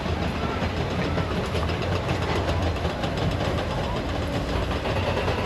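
Steady low rumble of idling engines under general street noise.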